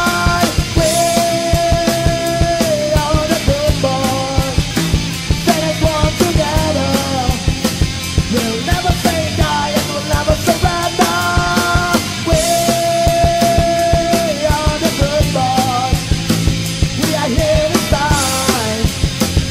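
Punk rock song: a fast, even drumbeat under electric guitars, with a melody line holding long notes.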